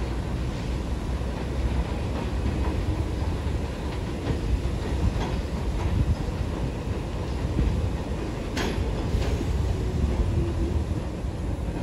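R46 subway train rolling into an elevated station, a steady rumble of wheels on the rails with light clicking, and one sharp metallic clank about eight and a half seconds in.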